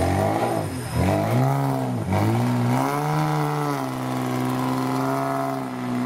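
Engine of a modified off-road 4x4 revving as it climbs a steep muddy bank. The revs drop and pick up sharply twice in the first two seconds, then rise and are held high and steady.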